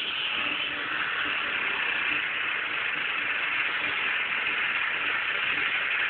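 Steady, even hiss of static, strongest in the upper range, unchanging throughout.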